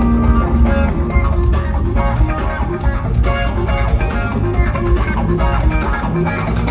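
Live rock band playing an instrumental passage: electric guitar picking quick runs of notes over bass guitar and drum kit.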